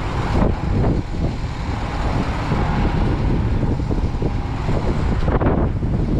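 Diesel flowing from a pump nozzle into a semi truck's fuel tank, a steady rushing hiss over the even low rumble of an idling diesel truck engine.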